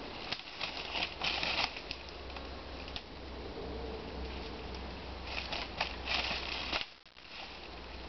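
Dry leaf litter and palm fronds rustling and crackling underfoot in two short bouts, with a few sharp snaps, over a steady low hum.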